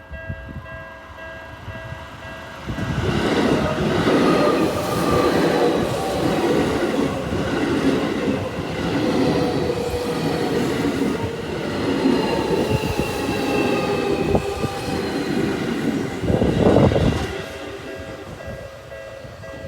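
Seibu 40050-series electric train passing at speed: a long run of wheel and running noise with a falling whine, starting about three seconds in and dying away with a brief louder surge near the end. Steady ringing tones of several pitches are heard before it arrives and after it has passed.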